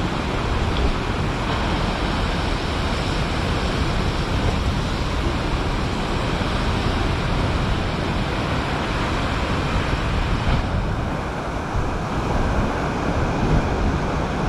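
Strong storm wind blowing across the microphone over heavy sea surf, a steady rush of noise without a break.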